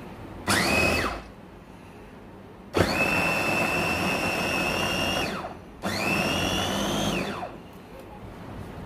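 Small electric food chopper's motor run in three pulses, grinding lentils with garlic and ginger: a short one, then one of about two and a half seconds, then one of about a second and a half. Each whine rises as the blade spins up and falls away as it stops.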